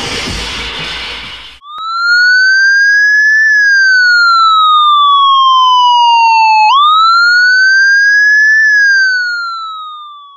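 A loud noisy rush cuts off abruptly about a second and a half in. Then an electronic siren sound effect wails, its pitch rising and falling slowly through two cycles before it fades out near the end.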